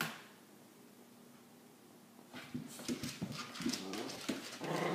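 Boxer puppy whining and whimpering in short cries that rise and fall, starting a little over two seconds in, as it frets over a tennis ball lost out of reach.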